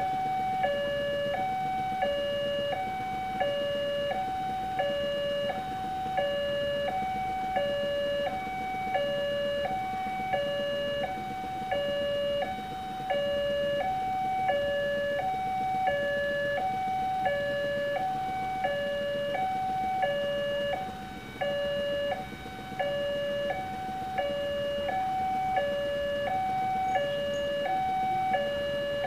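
Railway level-crossing warning alarm sounding a two-tone electronic ding-dong, a higher and a lower tone alternating about once a second without pause. It signals that a train is approaching and the barrier is closed.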